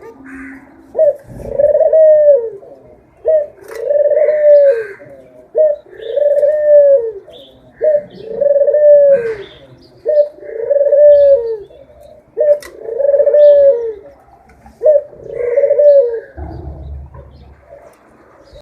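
A dove cooing over and over: seven similar coos about two seconds apart, each a short note followed by a longer note that rises and falls.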